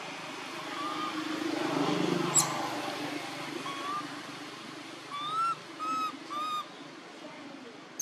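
Baby macaque giving short, arched cries: a couple of single calls, then three in quick succession near the end. A sharp click comes between two and three seconds in, over a low rumble that swells and fades.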